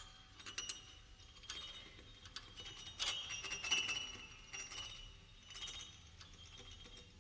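Solo piano in a contemporary piece, playing sparse, quiet high notes with sharp clicking, clinking attacks that ring briefly, thickest about three to four seconds in.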